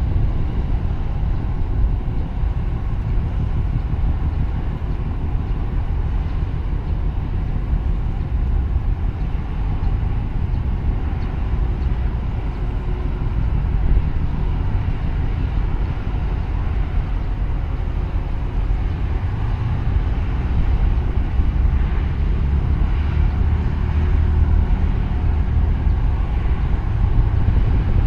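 Steady low rumble of marine engines over the water, mixed with wind buffeting the microphone.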